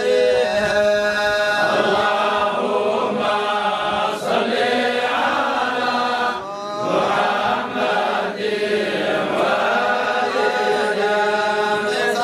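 Group of men chanting an unaccompanied Islamic devotional praise song (salawat on the Prophet), with long held notes and short breaths between phrases.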